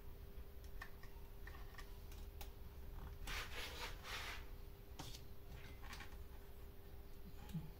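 Faint handling noises from working on a chainsaw's plastic housing: a few light clicks and a brief rubbing, scraping sound about three to four and a half seconds in, over a faint steady hum.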